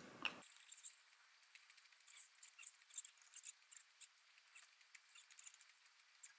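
Faint eating sounds: a wooden spoon scooping and scraping chopped salad on a ceramic plate, heard as a scattered run of small, irregular clicks and scrapes.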